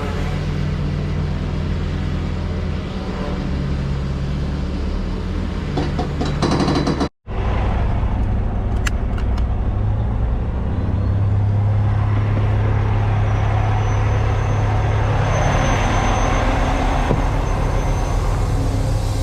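Heavy diesel engine running steadily with a deep drone, broken by a sudden cut to silence about seven seconds in. It then carries on at a steady pitch, with a faint rising whine near the middle.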